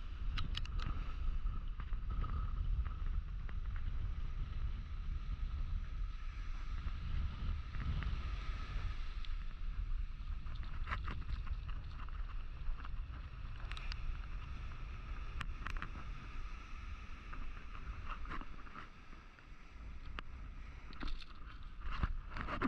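Wind buffeting the microphone over the wash of surf breaking on the beach, with scattered sharp clicks and knocks.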